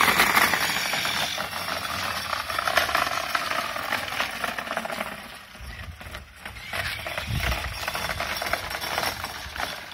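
Razor electric scooter riding over gravel: a steady rattling crunch from its small hard tyres, with a faint motor whine that rises and then falls in pitch, fading as the scooter moves away.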